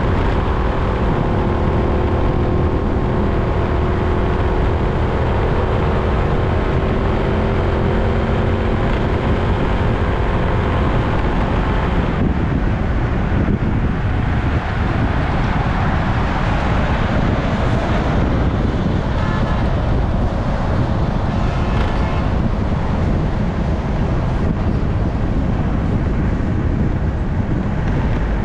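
Steady rumble of wind and road noise from a vehicle travelling along a road, with a faint engine hum whose pitch drifts a little in the first half. Near the middle a concrete mixer truck is close alongside, and the sound turns hissier for several seconds.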